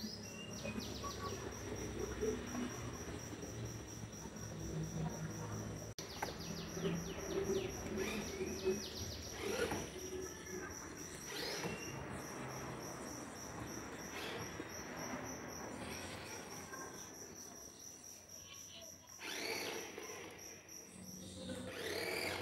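Toy remote-control car's small electric motor whirring in a few short runs, with a steady, high, pulsing chirp throughout.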